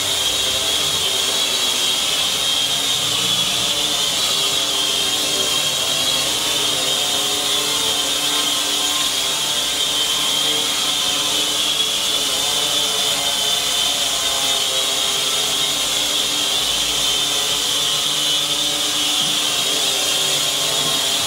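Cheerson CX-33S tricopter, a six-motor drone with upper and lower motors on each arm, hovering steadily. Its small motors and propellers make a continuous high whine, and their pitches drift slightly as it holds position.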